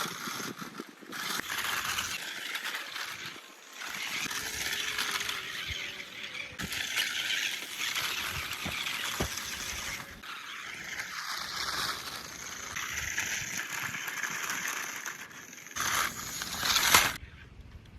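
Toy remote-control 6x4 truck driving over rough ground, its tyres crunching and its body rattling, with short whines coming and going.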